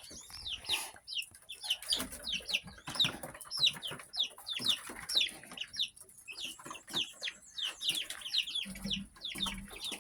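Young chickens peeping: many short, high, downward-sliding chirps, about three a second, from a group of chicks.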